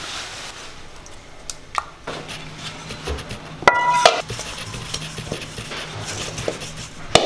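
Stainless steel mixing bowls knocking and clinking together, one ringing briefly about four seconds in, with a sharp knock near the end. A low steady hum runs underneath from about two seconds in.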